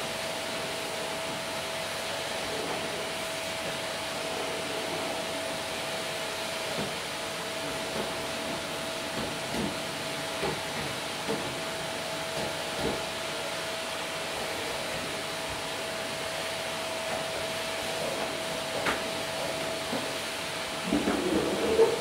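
Vacuum cleaner running steadily over carpet: a rush of suction with a constant motor whine, broken by occasional light knocks, and a short burst of louder clattering near the end.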